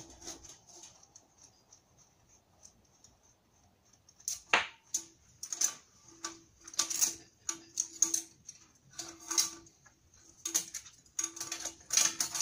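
Irregular metallic clicks and clinks start about four seconds in, as the clamp holding a turbocharger's center section to its exhaust housing is worked loose by hand.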